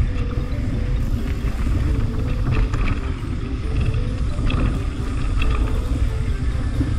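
Mountain bike riding on a dirt singletrack, heard from a camera on the bike or rider: a steady rumble of wind on the microphone over tyre noise on dirt and leaves, with a few short rattles of the bike over bumps.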